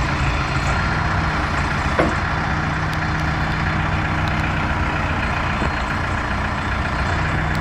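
Case 580L Series II backhoe's diesel engine running steadily, with one brief sharp clank or squeak about two seconds in.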